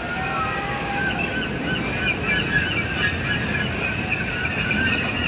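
Steady rumbling noise of a Bolliger & Mabillard mega coaster train being hauled up its lift hill, heard from a distance, with a high, wavering whistle-like sound running over it.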